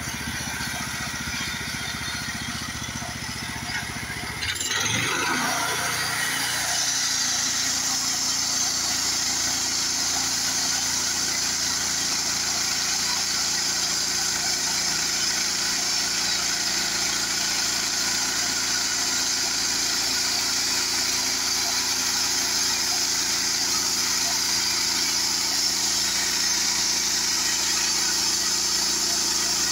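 Gas engine of a portable bandsaw sawmill running, then the band blade sawing through a sunken log, with a steady high hiss of cutting from about six seconds in. The log is a sinker log, which the sawyer takes for maple, hard to saw and with very dry sawdust.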